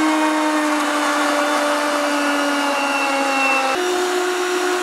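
Countertop blender motor running steadily while it purées avocado with rapeseed oil being poured in to emulsify it. Its hum sags slightly, then steps up suddenly in pitch near the end.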